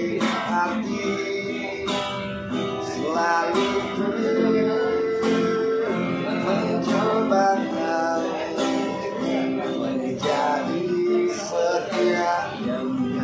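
A man singing a slow ballad with strong feeling, accompanied by a strummed acoustic guitar, holding one long note about four seconds in.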